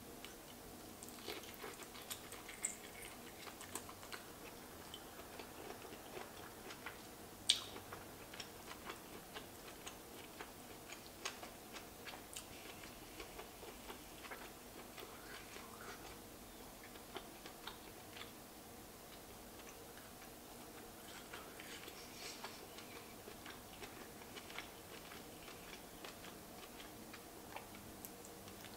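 Faint, scattered clicks and small taps of lobster shell being handled and picked at while eating, with some chewing, and one sharper click about seven and a half seconds in.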